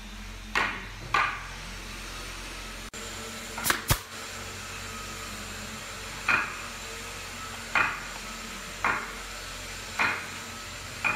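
Pneumatic brad nailer firing brads into carved hardwood trim: a series of short, sharp shots, irregularly spaced a second or more apart, with a close pair about four seconds in. A steady hum runs beneath.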